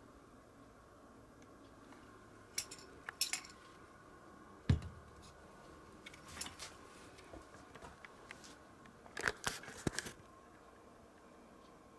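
Scattered light clicks, taps and scrapes of things being handled, with one louder knock a little under five seconds in and a quick flurry of clicks about three-quarters of the way through.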